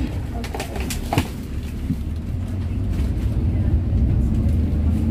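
Low rumble of a moving road vehicle heard from inside the cabin, growing a little louder toward the end. A few light rattles come about half a second in, with a sharp knock just after a second.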